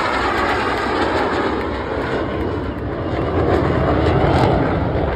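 Jet engine noise from a Blue Angels F/A-18 Super Hornet flying past: a steady rushing noise that eases a little in the middle and swells again about four seconds in.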